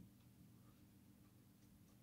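Near silence: faint room tone with a steady low hum and a few faint ticks.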